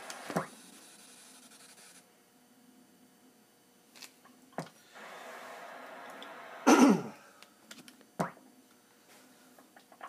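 CB radio receiver hissing with band static in short stretches that cut in and out with clicks. A loud, brief squawk falls in pitch about seven seconds in.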